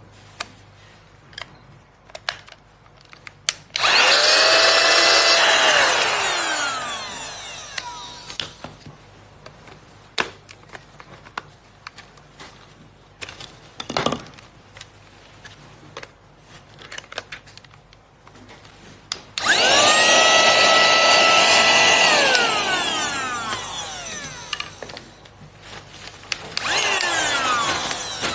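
Handheld car vacuum cleaner's small motor switched on three times, running with a steady whine for a couple of seconds, then winding down with falling pitch after each switch-off; the last run, near the end, is short. Clicks and handling knocks come between the runs.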